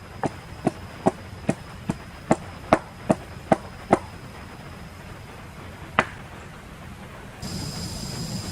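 Chopping: about ten sharp, evenly paced strikes, roughly two and a half a second, then a single strike a couple of seconds later. Near the end a steady hiss comes in abruptly.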